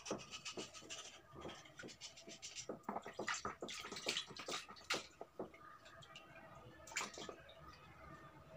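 A soft, wet slate stone piece rubbed and crumbled between the fingers in a basin of water: irregular small crackles and clicks with water sloshing and dripping, busiest in the middle and sparser near the end.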